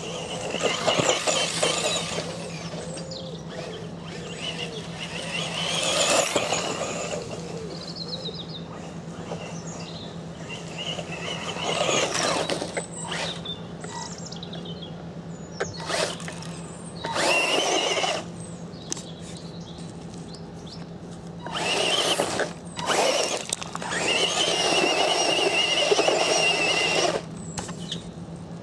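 Tamiya Frog electric RC buggy with twin 19-turn brushed motors making repeated high-speed passes, the motors and gears whining in bursts as it accelerates, the longest burst near the end.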